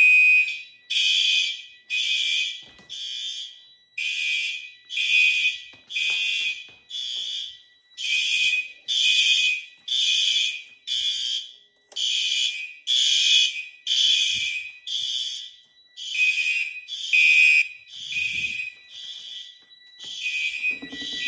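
Fire alarm horns sounding in a fast pulsed pattern, about two blasts a second, with a short pause every four seconds or so, over a steady high-pitched tone. The basement fire alarm system has gone into alarm after one of its smoke detectors was tripped with smoke.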